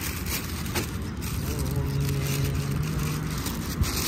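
A plastic carrier bag crinkling and rustling as a hand digs through it, over a steady rumble of road traffic. A vehicle's engine hum rises and holds from about a third of the way in until near the end.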